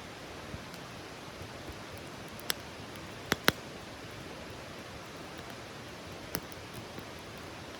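Wood campfire burning: a steady hiss with scattered sharp crackles and pops, two close together about three and a half seconds in.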